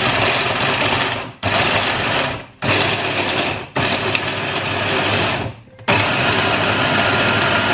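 Hand blender motor on its chopper bowl, pulsed on and off five times in quick succession, the last run the longest, its blades mincing carrots, onion and garlic.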